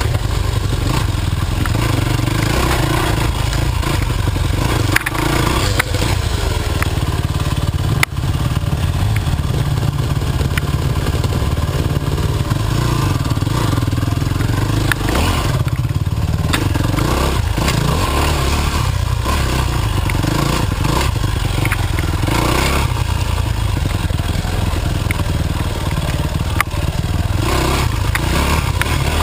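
Yamaha dirt bike engine running under throttle along a rough trail, its revs rising and falling, with clatter from the bike and a few sharp knocks over the ground.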